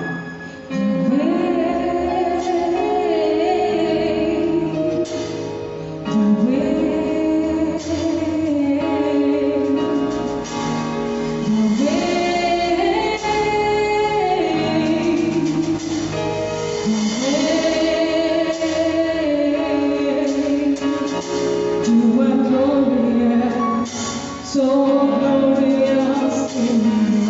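Gospel song: a woman singing long, held phrases over instrumental accompaniment.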